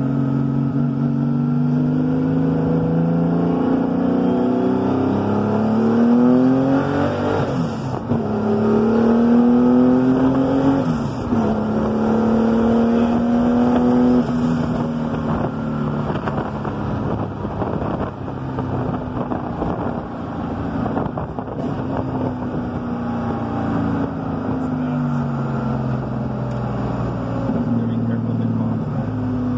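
Air-cooled flat-six engine of a Porsche 911 race-car build, heard from inside the cabin as it is driven. It repeatedly accelerates, its note climbing in pitch and dropping back at each gear change. It settles into a steady cruise and eases off, then climbs again near the end.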